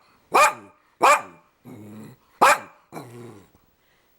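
Dog barking three times, short and loud, with two longer, quieter low growls in between.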